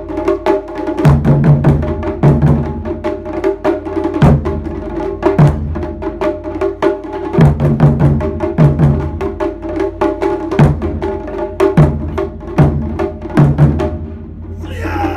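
Japanese taiko ensemble playing together: barrel-shaped nagado-daiko and a large drum on a tall stand struck with wooden bachi sticks, deep drum beats in groups over a fast run of sharp, crisp stick strokes.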